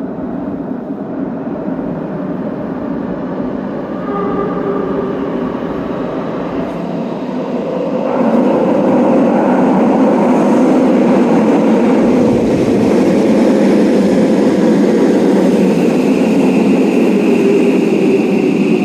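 Six-car subway train arriving through the tunnel and running into the underground platform: a rumble of wheels on rail that grows louder about four and eight seconds in, with a steady high whine joining in near the end.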